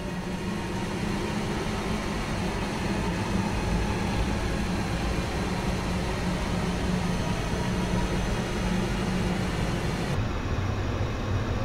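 Steady low rumbling drone with a constant hum and hiss, no beat or voice. About ten seconds in, the high hiss drops away and the low rumble thickens.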